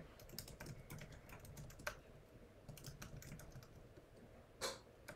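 Faint typing on a computer keyboard: irregular runs of keystroke clicks, with a louder clack about two seconds in and another near the end.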